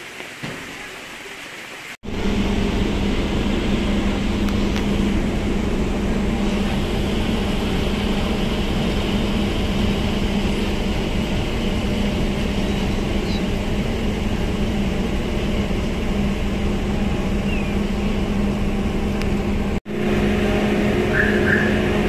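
Ferry's engines droning with a steady low hum under a constant rush of noise, starting abruptly about two seconds in.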